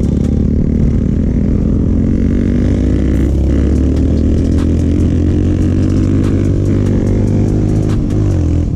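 Royal Enfield Himalayan's single-cylinder engine running through an aftermarket Akrapovic exhaust while the bike is ridden. The exhaust note is steady and loud, and its pitch dips and recovers a few times.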